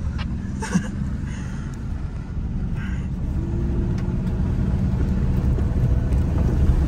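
Car engine running under throttle while driving over a muddy, bumpy track, its rumble growing steadily louder.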